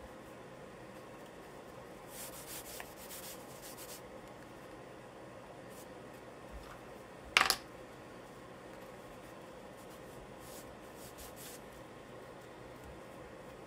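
Charcoal scratching and rubbing on paper in short strokes, clustered about two to four seconds in and again faintly near the end. About seven seconds in there is one brief, much louder sharp sound.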